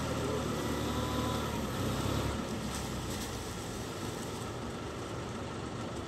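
Tractor engine running steadily under a front-mounted sugarcane loader, its low drone dropping off about two seconds in.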